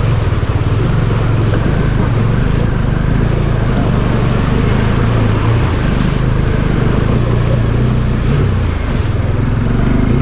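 Motorcycle engine running steadily at low revs under a steady rushing noise.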